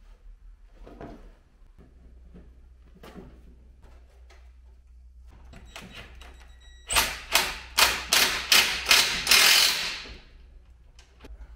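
Ratchet wrench worked in a quick series of strokes on the car's exhaust, about seven sharp clicking bursts over three seconds, after a few seconds of faint handling of metal parts.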